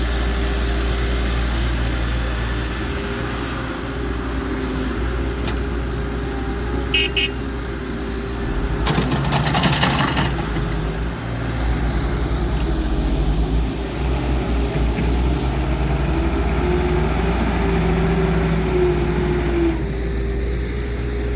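Heavy earth-moving machinery, an excavator and dump truck, with the diesel engine running steadily. A brief double toot sounds about seven seconds in, and a burst of rushing noise follows about two seconds later.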